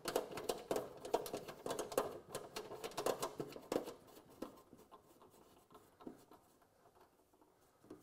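Quick small clicks and scratches of star knob screws being turned by hand to secure the steam hose adapter on a steam humidifier. They thin out and stop about four or five seconds in.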